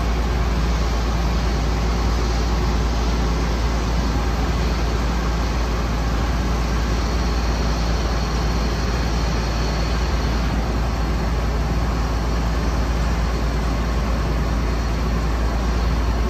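Water-well drilling rig's power unit running steadily, a constant loud machine drone with a deep rumble.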